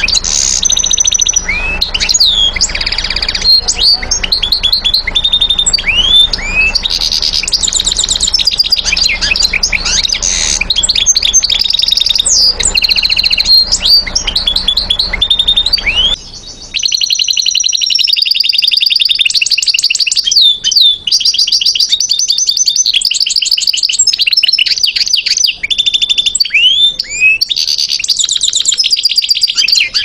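European goldfinch singing a long, unbroken song of fast twittering runs of repeated notes mixed with high rising and falling whistles. A low background rumble under the first half cuts out about halfway through while the singing goes on.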